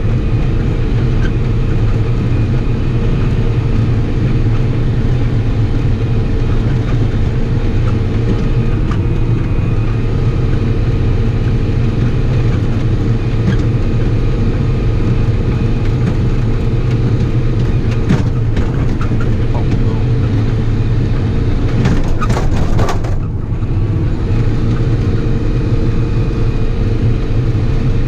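Diesel engine of harvesting machinery running steadily, a continuous low drone with a brief dip in level about 23 seconds in.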